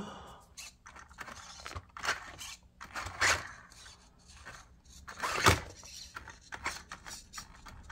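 Losi Mini-T 2.0 1/18 RC truck's brushless motor and gear drivetrain in several short, uneven throttle bursts as it is driven back and forth, the loudest about five and a half seconds in.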